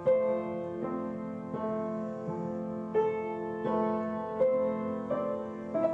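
Solo piano playing a melodic piece, a new chord struck about every 0.7 seconds and each left ringing into the next.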